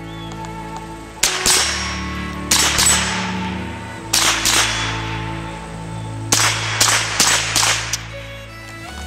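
About a dozen shots from a semi-automatic .22 rimfire rifle fired offhand, sharp cracks in quick clusters of two or three, a fraction of a second apart, with background music running underneath.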